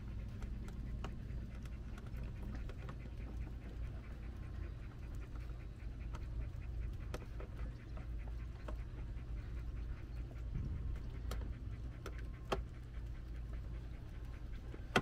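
A German shepherd dog panting steadily, over a low steady hum, with a few faint clicks.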